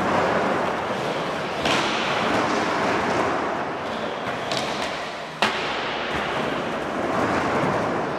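Skateboard wheels rolling over pump-track ramp rollers with a steady rumble, broken by a few sharp knocks of the board, the sharpest about five and a half seconds in.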